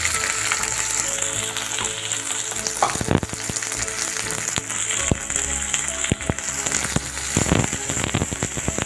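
Chopped shallots sizzling and crackling in hot oil in an iron kadai. Near the end a metal spatula stirs them, scraping the pan a few times.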